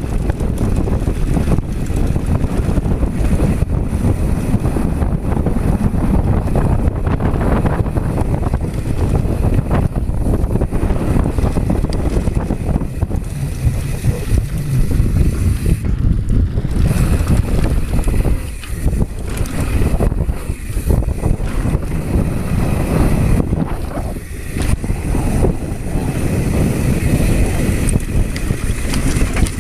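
Wind rushing over a GoPro's microphone together with the rumble of mountain-bike tyres on a dry dirt trail during a fast descent, easing briefly twice in the second half.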